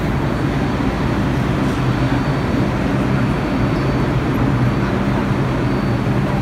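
New York City subway train running just after its doors have closed: a steady rumble with a low, even hum.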